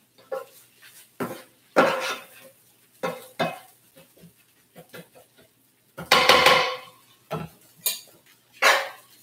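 Spatula scraping and knocking against a large pan while stirring fried rice: a string of irregular scrapes and clacks, the longest and loudest a little past halfway and another strong one near the end.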